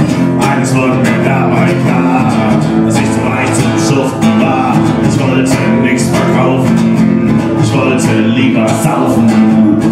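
Acoustic guitar strummed in a steady rhythm, an instrumental passage of a live solo song.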